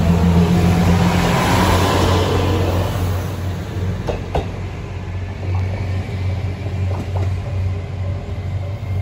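JR Kyushu KiHa 200 series diesel railcar pulling away past the platform, its diesel engine and rolling wheels loud at first and fading over about three seconds as it leaves. A steady low hum remains afterwards, with a few faint clicks.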